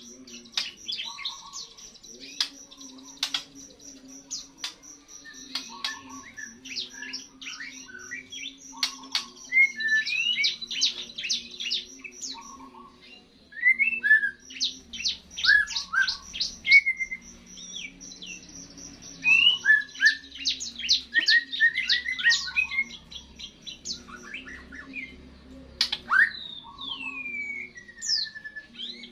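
Young white-rumped shama singing soon after its moult: a varied run of quick chirps, rattled strings of notes and short rising and falling slurs, with a long falling whistle near the end. A steady low hum runs underneath.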